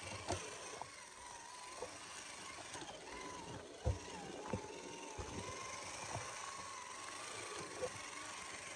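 Traxxas TRX-4 Ford Bronco RC crawler's electric motor and gearbox whining, the pitch wavering up and down with the throttle. Scattered knocks and crunches come from the tyres going over dirt, sticks and stones, the loudest about four seconds in.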